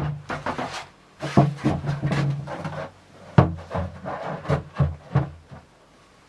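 Stacked plastic bins being pulled apart and set down on the floor: hollow knocks and rubbing scrapes of plastic on plastic in several bursts, stopping shortly before the end.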